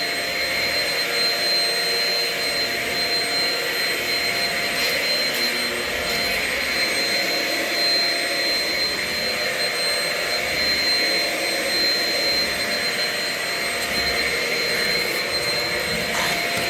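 Shark Rocket self-cleaning stick vacuum running steadily while sucking up dirt, its motor giving a steady high whine over the rush of air.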